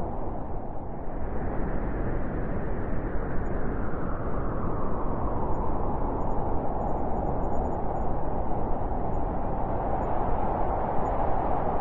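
Blizzard wind blowing hard, a steady low rushing noise that swells and eases in slow gusts.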